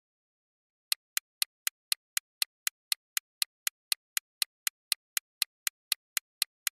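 Clock-tick sound effect for a quiz countdown timer: sharp, evenly spaced ticks at about four a second, starting about a second in.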